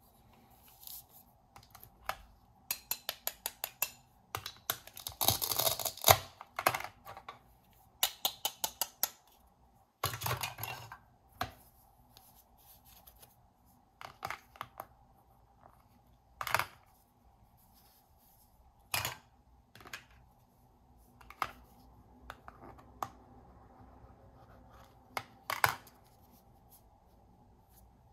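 Hard plastic toy fruit and vegetable pieces clicking and clattering as they are handled, with the toy knife tapping on a plastic cutting board. Runs of quick clicks early on give way to single knocks a few seconds apart, with a scratchy stretch about five seconds in.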